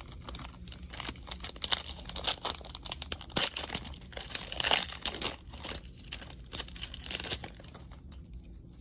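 Foil wrapper of a baseball card pack being torn open and crinkled: a dense run of sharp crackles and rustles, busiest midway, that thins out near the end.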